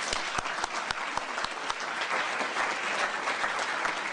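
Audience applauding: a steady patter of many hands clapping, with a few louder single claps standing out in the first second or so.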